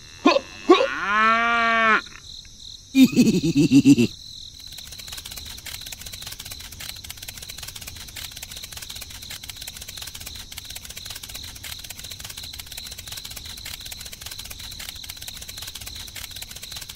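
A cow moos once, a pitched call that rises and falls over about two seconds, followed about three seconds in by a second, shorter pulsing animal call. After that a steady chirring of crickets with a constant high insect tone.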